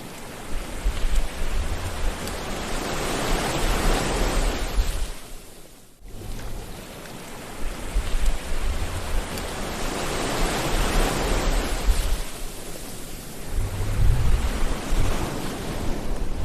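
Sea waves washing onto a shore: one surge swells and fades over about five seconds, the sound drops out abruptly for a moment about six seconds in, then a longer surge rises and ebbs.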